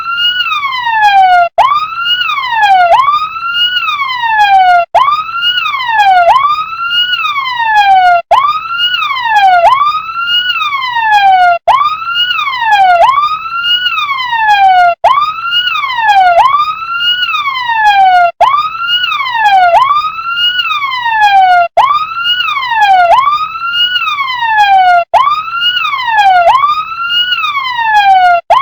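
Electronic siren of a toy RC fire truck, wailing without a break: each cycle sweeps up quickly and falls away more slowly, about every second and a half. A brief cut comes every three and a half seconds or so.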